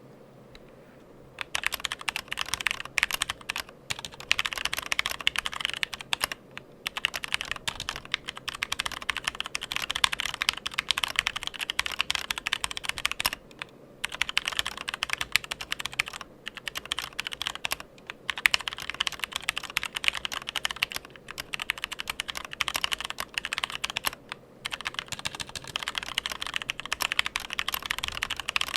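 Fast, continuous typing on a mechanical keyboard, a dense clatter of key clicks that starts about a second and a half in, with a few short pauses between bursts.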